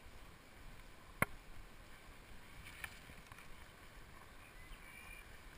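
Faint rustling and footfalls of people walking through long grass while carrying a long wooden frame. A single sharp click comes about a second in, and a smaller one near three seconds.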